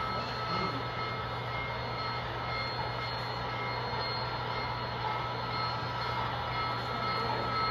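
HO-scale model train running on a layout: a steady hum with an even wash of background noise, no distinct clicks or knocks.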